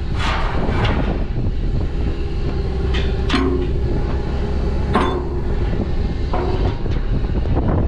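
Well service rig's engine running steadily, with several sharp metallic clanks and rattles from the rig, a few of them ringing briefly.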